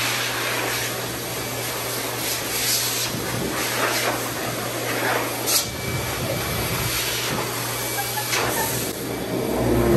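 Pet grooming dryer blowing a steady rush of air from its hose nozzle, with a low hum underneath, running at its one fixed setting. A few brief louder swishes come through as the nozzle moves over the puppy and towel.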